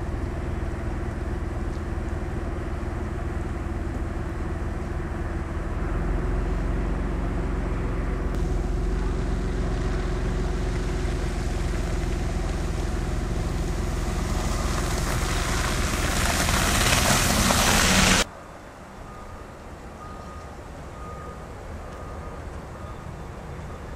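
Motor vehicle engine running steadily, joined by a rushing noise that builds to the loudest point and then cuts off abruptly. A quieter background follows, with faint, evenly repeated high beeps.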